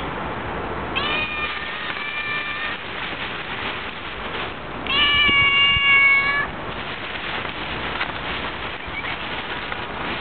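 A cat meowing: two long, drawn-out meows, the second one louder.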